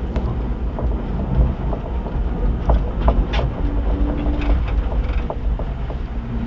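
Renault Logan on the move with steady low road rumble, and several short sharp knocks between about three and five seconds in: the knock from the right rear wheel arch.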